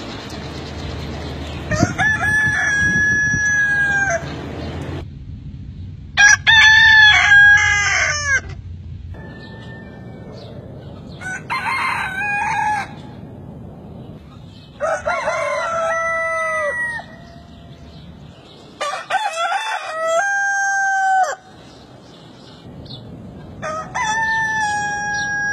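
Large feather-legged Brahma roosters crowing, six crows in turn about every four seconds, each two to three seconds long and dropping in pitch at the end.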